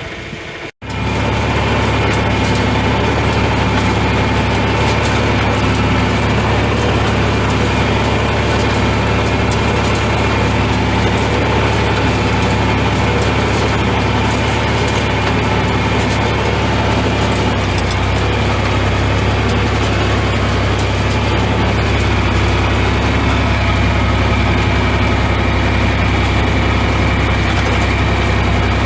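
Heavy engine running steadily at an even pitch, powering the old wire-tie International 56 hay baler. It starts abruptly just under a second in, and the low hum shifts slightly about two-thirds of the way through.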